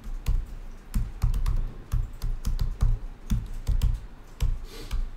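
Typing on a computer keyboard: a quick, irregular run of key clicks, each with a low thump.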